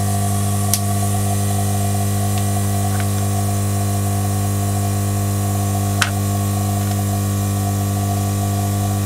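Hot air rework station running: a steady electrical hum with air hiss, and two light clicks, about a second in and about six seconds in.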